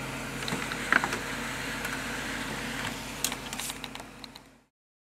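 Xerox Phaser 6022 printer running with a steady hum and a few clicks about a second in. Near the end there is a quick crackle of paper being handled, then the sound stops.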